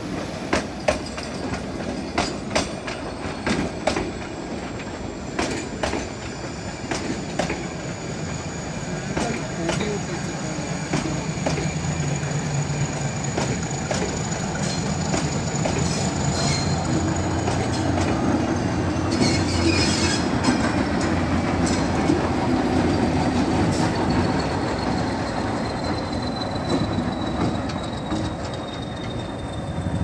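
Nilgiri Mountain Railway train passing at walking pace: wheels clicking over the rail joints, with a thin high squeal gliding slowly down in pitch throughout. The diesel locomotive's engine rumble grows from about a third of the way in, and a brief hiss comes about two-thirds through.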